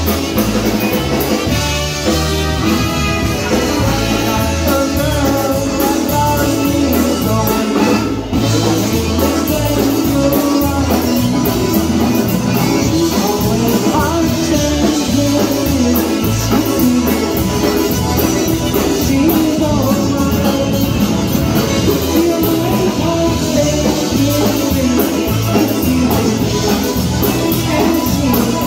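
Polka band playing live: concertinas, trumpet, saxophone, bass guitar and drum kit over a steady beat, with a sung vocal.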